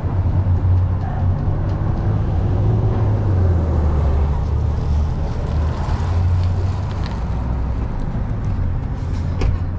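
Restaurant counter ambience: a steady low hum under faint background voices and clatter.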